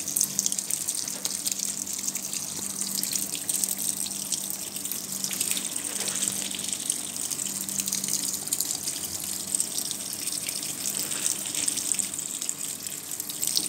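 Top-loading washing machine filling: water streams steadily from the inlet through the powder-filled detergent drawer and splashes onto the laundry in the drum. A steady low hum runs underneath.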